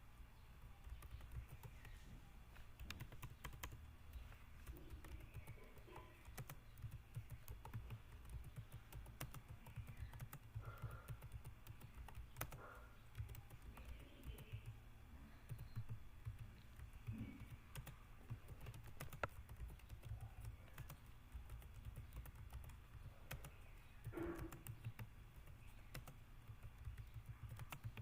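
Faint, continuous typing on a computer keyboard, a quick irregular run of key taps.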